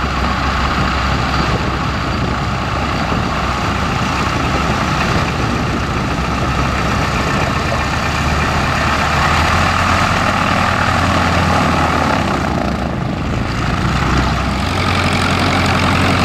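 Piston engines of vintage biplanes running at idle with propellers turning, a steady loud drone. The low hum shifts to a different note near the end.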